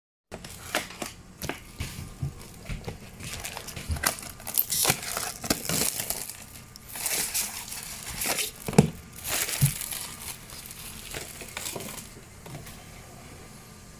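Clear plastic wrapping on a self-heating hot pot package crinkling and tearing as it is unwrapped and handled, in irregular bursts of crackles that die down near the end.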